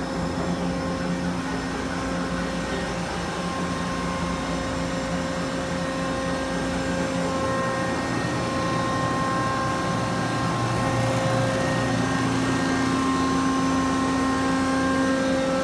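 Mitsubishi SC40CNC CNC gear shaper running: a steady machine hum with several whining tones that come and go every few seconds, growing slightly louder about eleven seconds in.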